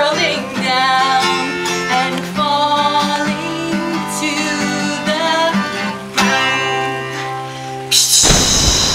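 A woman singing long, wavering notes over a strummed acoustic guitar. About eight seconds in the music stops and a loud water-splash sound effect takes over, slowly fading.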